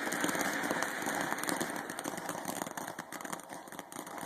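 A ground firework spraying sparks: a steady hiss with fine crackling that eases slightly near the end.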